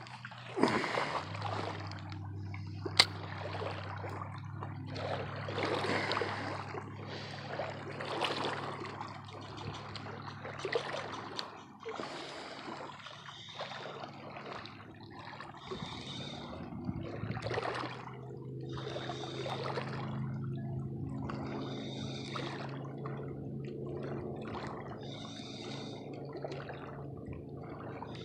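Lake water lapping at the shoreline in irregular washes, with one sharp click about three seconds in and a steady low hum underneath from about halfway on.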